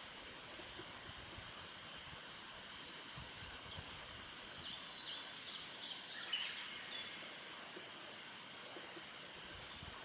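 A bird calling a quick series of about seven high, downward-sweeping notes, over a steady high hiss from the surroundings, with a few faint very high chirps before and after.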